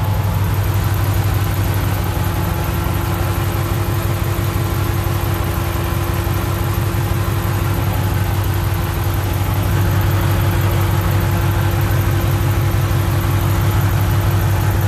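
2015 Ram 1500's 5.7-litre Hemi V8 idling steadily, heard close up in the engine bay, with engine-flush detergent circulating through the crankcase.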